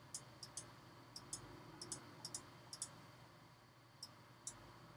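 Faint computer mouse clicks, about a dozen at an uneven pace, many in quick pairs, with a pause about three seconds in: points being placed on a mask path with the pen tool.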